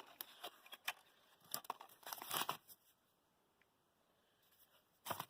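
Faint rustling and crinkling of wrapping, with a few light clicks, as hand-wrapped coins are handled.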